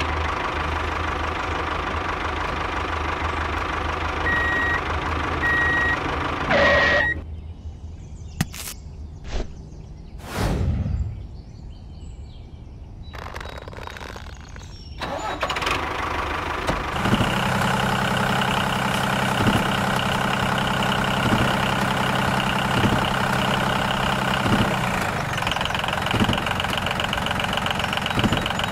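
Diesel tractor engine running, with three short high beeps about five to seven seconds in. A quieter stretch follows with a few knocks and a thud, then the engine runs steadily again from about halfway through, with a light regular pulse.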